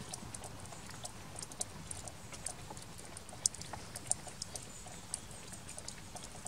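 Rain: irregular drips and pats of raindrops striking nearby surfaces, a few sharp ticks a second at uneven spacing, over a low steady rumble.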